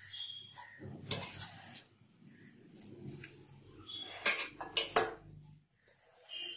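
Hand kneading a stiff, crumbly maida dough in a stainless steel bowl: fingers scraping and rubbing against the steel. There are a few sharp metallic knocks of the bowl about four to five seconds in.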